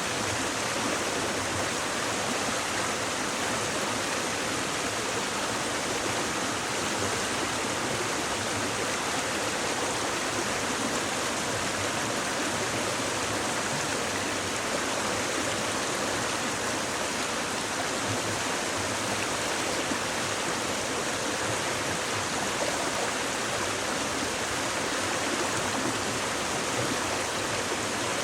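Shallow stream babbling and rushing over stones, a steady, even wash of water with no breaks.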